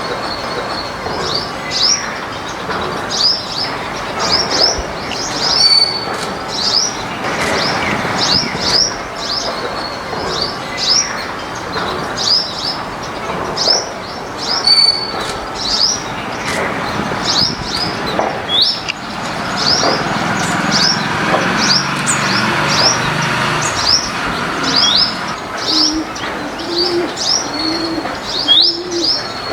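Backyard birds calling: a small bird repeats short high chirps, one or two a second, throughout. Near the end a dove coos in a series of five low notes.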